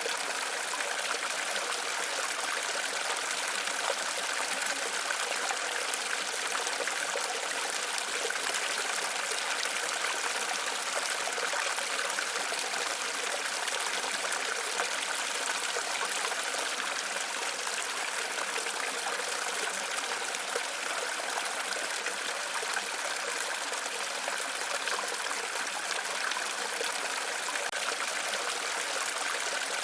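Waterfall: water rushing steadily and evenly, with a bright hiss and little deep rumble.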